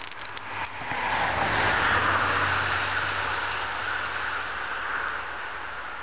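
A road vehicle passing at a distance: a rushing tyre-and-engine noise that swells about a second in and slowly fades away over the next few seconds.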